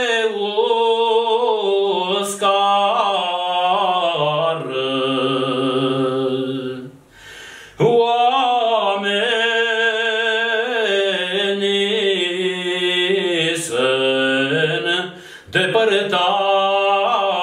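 A man singing a slow, drawn-out Romanian folk lament, unaccompanied. He holds long notes with vibrato and ornaments, and breaks for breath about seven seconds in and again about fifteen seconds in.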